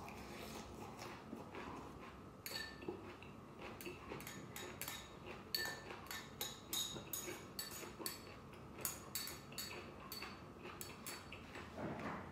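Eating utensils clicking and clinking against a bowl of noodle soup in quick, irregular strokes, some of them ringing briefly.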